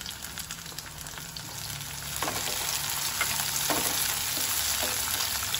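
Sliced onions, green chilli and chopped tomato sizzling in hot oil in a wok; the sizzle grows louder about two seconds in as the tomato goes in. A few light knocks of the wooden spatula against the pan as it is stirred.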